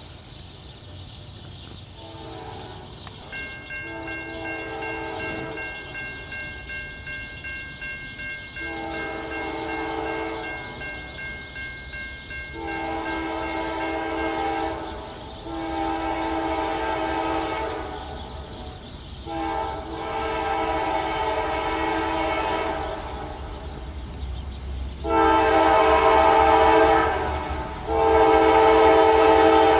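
Diesel locomotive air horn sounding a series of long blasts with short breaks, growing louder as the train approaches, over the low rumble of the oncoming train. The last two blasts are the loudest.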